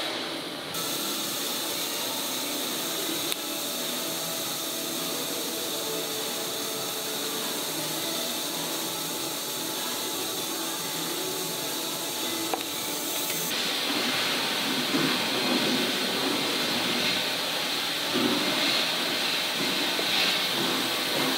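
TIG welding arc hissing steadily as filler rod is fed into a grille seam. The hiss changes and grows a little louder about halfway through.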